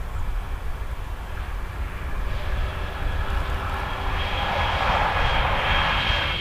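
A train approaching: a rushing noise that grows over several seconds with steady high whining tones on top, loudest near the end, over a low rumble.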